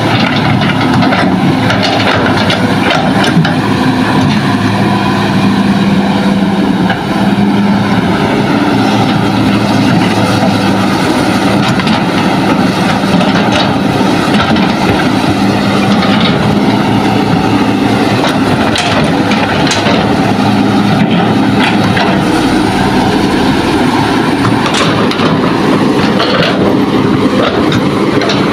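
Diesel engine and hydraulics of a Hitachi hydraulic excavator working as it digs and swings, a loud steady drone with a wavering whine above it. Scattered knocks and clatters in the second half, as soil and rock drop into the steel bed of the dump truck being loaded.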